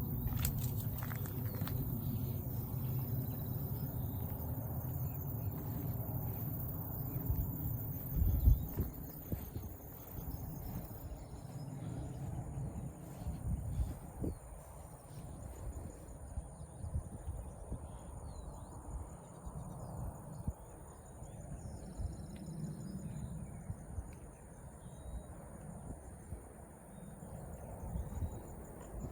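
Outdoor insect chorus, a steady high-pitched pulsing drone, with scattered short bird chirps over a low rumble. A single thump about eight seconds in.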